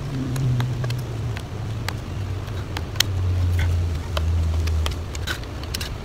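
Small knife clicking and scraping as it cuts short strokes into a wooden walking stick, scattered sharp ticks. Under it runs a low motor rumble that drops in pitch and is loudest in the middle.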